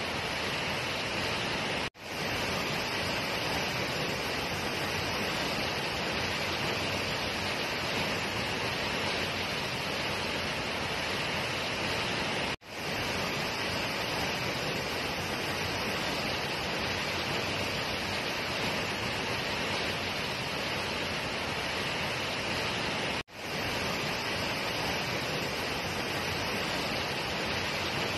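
Tall waterfall plunging down a rock face into a pool: a steady, full rush of falling water. The sound cuts out briefly three times, about ten seconds apart, each time swelling straight back.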